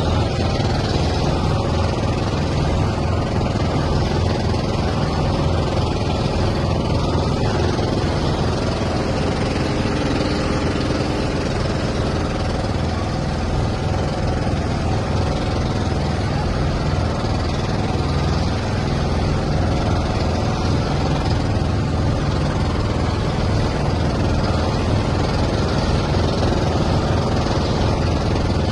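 An engine running steadily: a continuous deep drone with noise over it and no change in pace.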